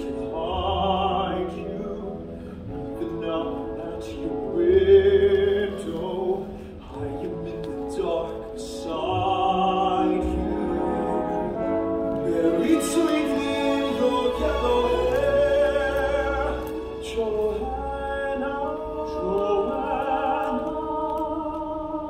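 A man singing a slow musical-theatre ballad with vibrato over a pit orchestra, heard live from the audience in the theatre.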